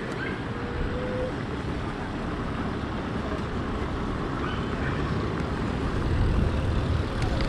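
Steady outdoor street noise: a low rumble of traffic and wind, with faint voices in the background.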